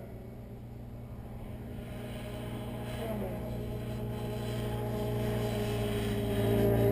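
Electric brushless motor and propeller of an Extreme Flight Laser RC aerobatic plane (Motrofly 3615, 625KV, on 5S) droning in flight, growing steadily louder as it comes closer.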